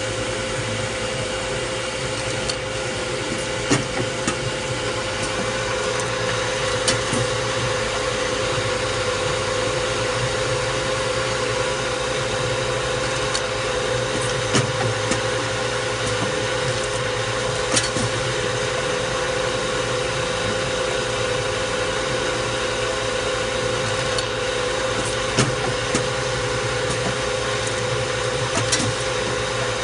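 CH CM0203B automatic chamfering machine running steadily: a constant machine hum and grinding from the wheel chamfering the ends of metal bars. Sharp clicks stand out over it, in pairs about three seconds apart, every seven or eight seconds.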